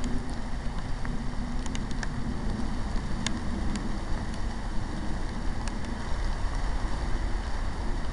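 Rain and wind on a handheld microphone: a steady low rumble under a light hiss, with scattered sharp ticks of drops.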